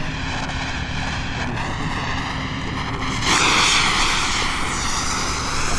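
Pyroland Bengalissima compound firework burning: a steady hiss, then about three seconds in a fountain effect ignites and sprays sparks with a louder, steady rushing hiss. No bangs yet.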